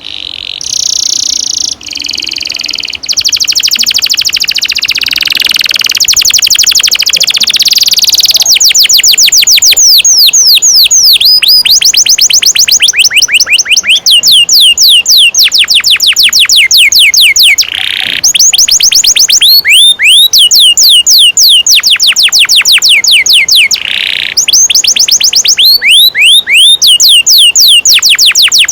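Domestic canary singing long rolling trills: a dense, rapid buzzing roll for the first several seconds, then long runs of quick down-slurred whistled notes, about six a second, broken by short pauses twice.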